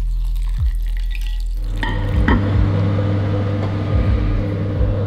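Water poured into a ceramic bowl, a steady rushing splash that starts about two seconds in, with a couple of clinks, over a steady low hum.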